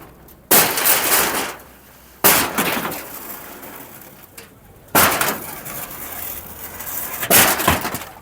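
Four loud crashes of something breaking, each starting sharply and falling away over about a second, as structures are torn down in a demolition.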